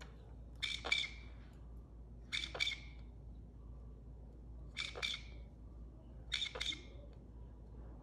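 Nanday conure giving short harsh squawks, four times, each a quick double note, about every two seconds while under light sedation for crop surgery: a sign the bird is still somewhat alert and not fully under.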